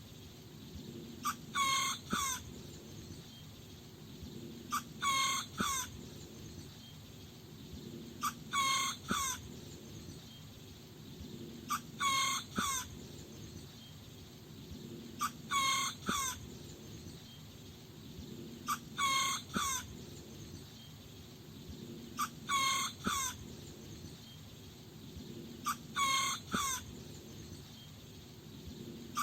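A small rooster crowing eight times at even intervals, about every three and a half seconds. Each crow is a quick run of three or four short notes lasting about a second.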